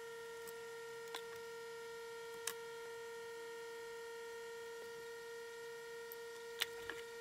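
A few light clicks and taps from handling wires against a plastic battery case, over a steady electrical hum that has a clear pitch. The loudest click comes near the end.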